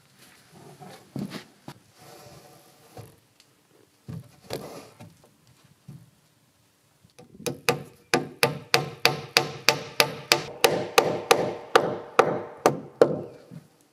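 Scattered wooden knocks and rubbing as logs are handled, then from about halfway in a steady run of sharp hammer strikes with a slight ring, about three a second, lasting some five seconds.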